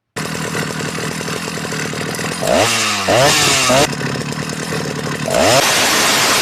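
Ported Husqvarna 77 two-stroke chainsaw with a 372XP carburettor, running at idle and then revved hard twice: a rev held for about a second and a half that drops back to idle, then a second rev about five seconds in that stays up.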